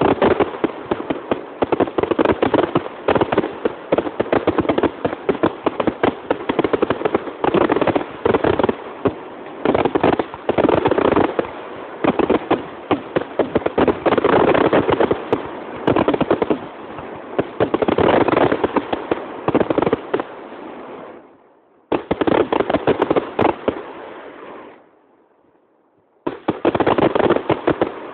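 Fireworks display going off in a dense, continuous barrage of rapid bangs and crackles. The barrage dies away twice in the last third, each time followed by a renewed burst.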